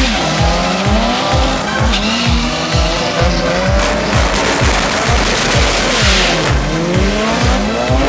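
Drag racing cars launching and accelerating hard, engine pitch climbing in rising sweeps near the start and again in the second half, over background music with a steady beat.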